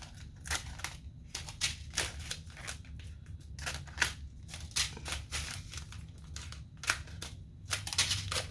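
Scissors snipping open small plastic bags of diamond-painting drills: a run of short, sharp snips, roughly two a second and unevenly spaced.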